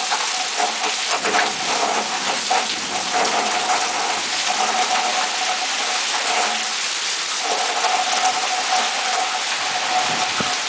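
Heavy thunderstorm rain pouring steadily onto foliage and a wet surface, an even, dense hiss. A steady mid-pitched hum runs beneath it and drops out for about a second midway.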